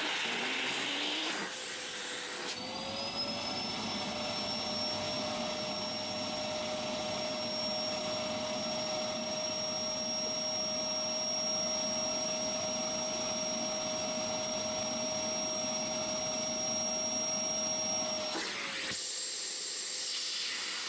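Vacuum cleaner running with a steady motor whine. About two and a half seconds in the whine rises in pitch and holds high, then drops back down near the end.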